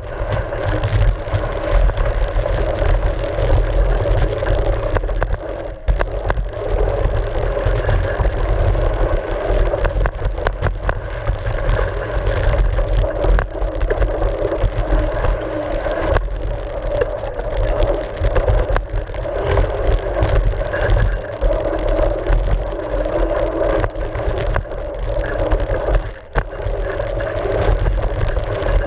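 Riding noise from a camera mounted on a mountain bike's front fork on a dirt trail: a constant low rumble of wind buffeting and vibration, tyre noise on dirt, and frequent short clicks and knocks from the bike bouncing over the rough ground.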